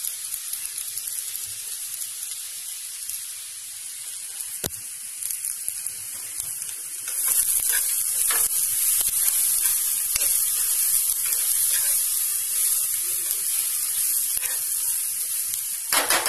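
Battered egg pieces, onion and spices sizzling in a non-stick frying pan. The sizzle grows louder about halfway through as the food is stirred with a spatula, with a few knocks of the spatula against the pan.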